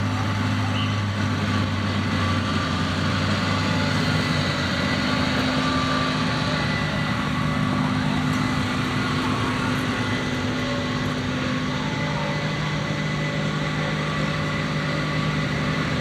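An engine running steadily at low speed, its tone shifting slightly about twelve seconds in.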